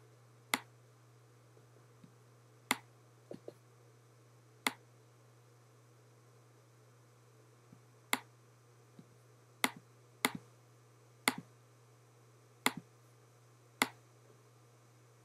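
Sharp clicks of a computer mouse button, about ten of them spread irregularly, a few in quick pairs, over a steady low hum.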